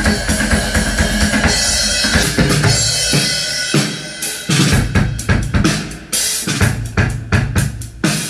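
Drum-heavy music: kick drum, snare and cymbals playing a beat. It drops back briefly about four seconds in, then comes back with dense, hard drum hits.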